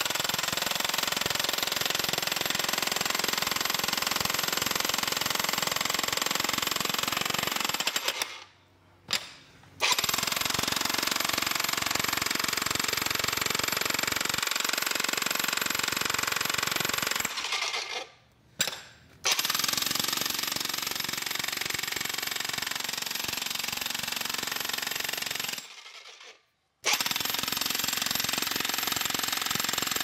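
VEVOR electric jackhammer running with a rapid, steady hammering. It stops briefly three times, about 8, 18 and 26 seconds in, and starts up again each time.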